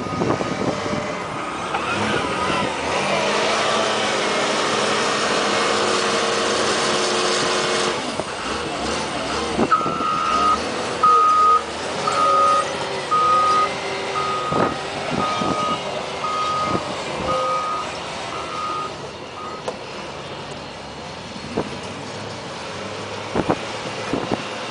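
Caterpillar wheel loader's diesel engine running, then its backup alarm beeping about once a second for some ten seconds as the machine reverses. A few sharp clunks are heard along the way.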